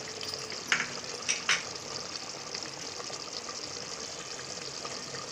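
Thick mutton masala gravy bubbling steadily in an open pressure cooker, with a few short clicks in the first second and a half.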